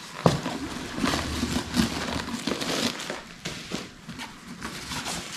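Rustling and crinkling as a Michael Kors Jet Set drawstring bag is opened and its inside handled, with a sharp click about a quarter-second in and many small clicks and scrapes throughout.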